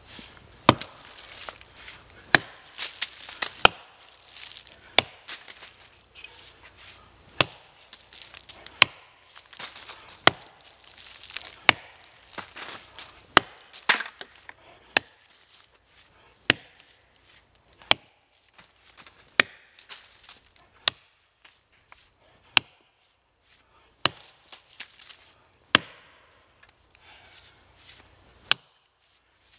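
Double-bit axe chopping into the roots of an oak tree at ground level: sharp, evenly paced strokes about every second and a half, some twenty in all.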